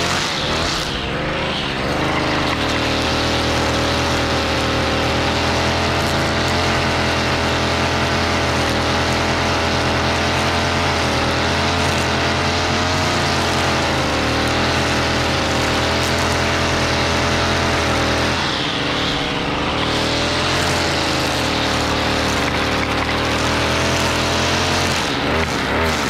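2011 Stihl FS55R string trimmer's 27.2cc two-stroke engine running at a steady high speed, wavering for the first couple of seconds, dropping to a lower speed about 18 seconds in before coming back up, and easing off again near the end.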